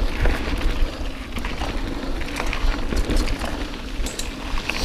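Canyon Spectral AL 7.0 full-suspension mountain bike riding along a dirt singletrack: a steady low rumble from the tyres rolling, with many sharp clicks and rattles from the bike over the bumps.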